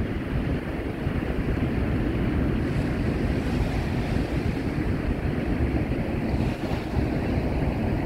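Rushing water of the Niagara River rapids above the Horseshoe Falls, a steady even rush, with wind rumbling on the microphone.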